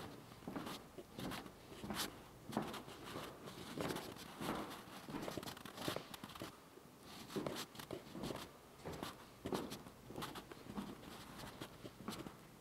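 Footsteps on a bare hardwood floor in an empty room: irregular knocks about once or twice a second, with some rubbing and handling noise.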